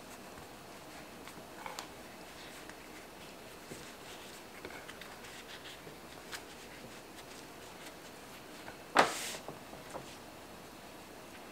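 Faint rustling and soft taps of a flour tortilla being folded and rolled into a burrito by hand on a wooden cutting board, with one louder, brief brushing thump about nine seconds in.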